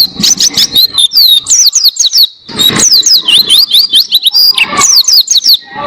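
White-eye (pleci) singing a fast, unbroken string of high, quickly sliding chirps and trills, with a brief pause about two and a half seconds in.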